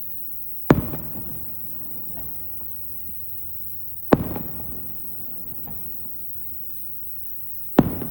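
Aerial firework shells bursting: three loud booms about three and a half seconds apart, each dying away over a second or so, with a few fainter pops in between.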